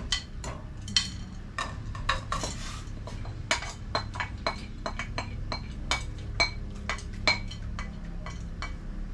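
Irregular clinks and knocks of a spoon against a bowl, about two a second, as washed dhal (split peas) is scraped out of the bowl into a pot of hot water.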